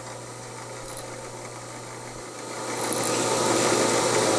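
Drill press running steadily with its motor hum; about two and a half seconds in the sound grows louder and noisier as the small twist bit is fed into the clamped aluminum plates to drill a hole.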